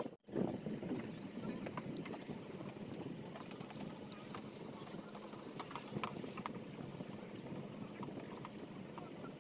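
Boat engine running steadily, with light knocks and clicks scattered through it. The sound cuts out for a moment just after the start.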